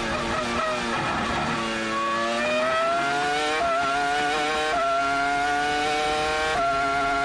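Williams-BMW FW26's 3.0-litre BMW V10 engine on a Formula One onboard run. The revs fall steeply as the car brakes and downshifts into a corner, then climb as it accelerates out, dropping briefly at three upshifts.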